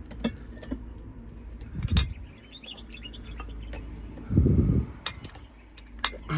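A few sharp light clinks and knocks of cookware being handled, the strongest about two seconds in. A short bird-like chirping comes about halfway, and a dull low thud or rustle, the loudest sound, comes near the end over a low steady hum.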